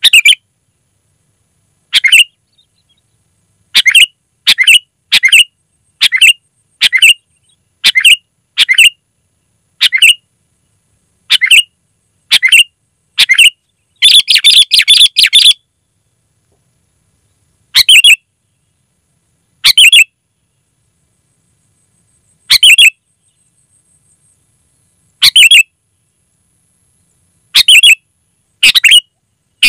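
Sooty-headed bulbul (kutilang) calling: short, loud calls every second or two, often in pairs, with a quick run of many calls about halfway through.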